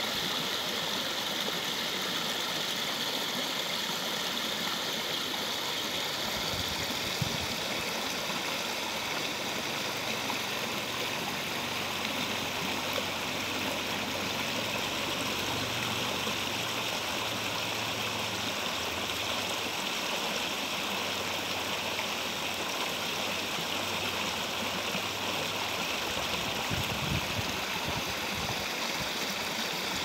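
Shallow stream rushing over rocks and stones, a steady, even rush of water.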